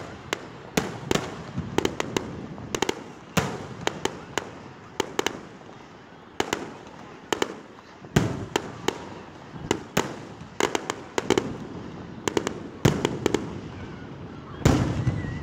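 Aerial firework shells bursting in a display: an irregular string of sharp bangs, about two a second, each trailing off in a low rumbling echo.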